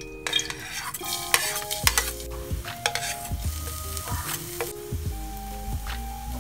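Minced garlic and green chili sizzling as they hit hot olive oil in a pan, with a metal spatula scraping and stirring them; the sizzle is loudest in the first few seconds and dies down near the end. Soft background music plays underneath.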